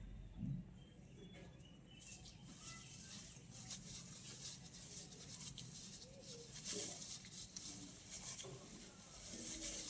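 Faint rustling and soft clicks around goats kept in a pen, with a few weak short calls. A goat begins to bleat near the end.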